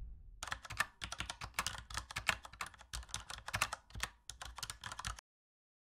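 Rapid, irregular key clicks of typing on a keyboard, stopping abruptly about five seconds in.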